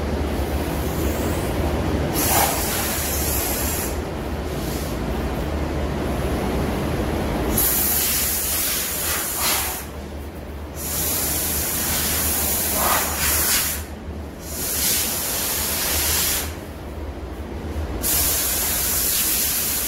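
Compressed-air blow gun hissing in repeated bursts of a couple of seconds each, blowing a sandblasted chassis clean before paint, over a steady low hum.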